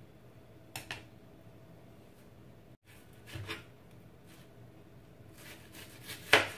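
Knife slicing a red onion on a cutting board: scattered soft cuts and taps of the blade against the board, a few at a time, the loudest near the end.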